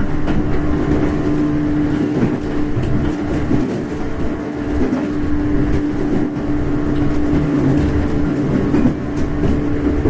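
Running sound inside a JR 415 series 1500-subseries electric multiple unit: a steady rumble of wheels on rail under a constant hum, with a few light clicks from the track.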